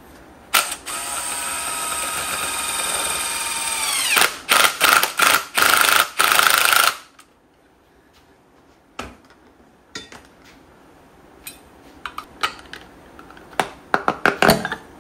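A DeWalt 20V cordless drill runs with a steady whine for about three and a half seconds as it bores into the round cover plug on the front of a BMW N54 engine, winds down, then gives several short loud bursts as the trigger is pulsed. After a quiet spell there are scattered sharp metal clicks and scrapes as a bar pries at the cover.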